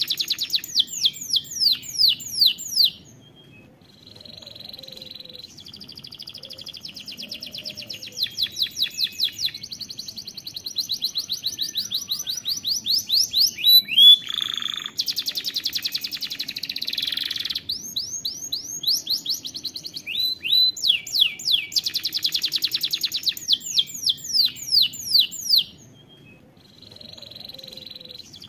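Domestic canary singing a long, continuous song of rapid trills. It runs series of falling notes, several a second, alternating with softer buzzy rolls, with short lulls about three seconds in and near the end.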